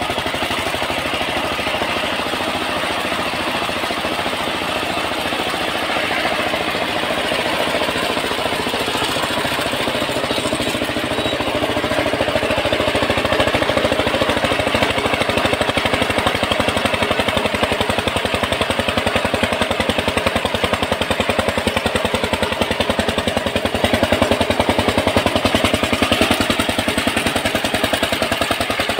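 Power tiller's single-cylinder diesel engine running steadily under load, belt-driving a homemade water pump, with water gushing hard from the pump's outlet pipe.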